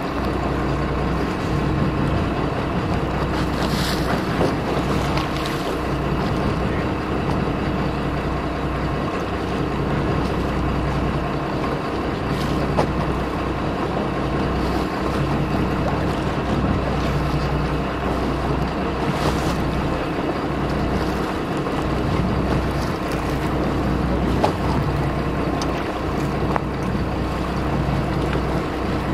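Sportfishing boat's engine running steadily under a constant wash of wind and water noise, with gusts buffeting the microphone now and then.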